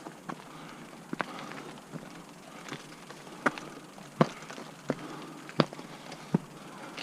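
Mountain bike rolling over a rough trail: a steady rolling rush broken by irregular sharp knocks and clatters as the bike jolts over bumps.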